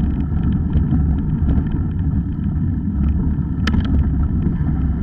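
Mountain bike rolling over a gravel track: a steady low rumble of tyres on gravel and wind on the camera microphone, with small rattling clicks from the bike and one sharper click about three and a half seconds in.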